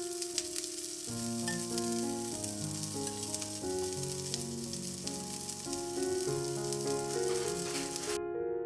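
Beetroot-paneer koftas sizzling in ghee in a hot cast-iron appe pan, a steady crackling fry with scattered pops, over soft background piano music. The sizzling cuts off abruptly near the end, leaving only the music.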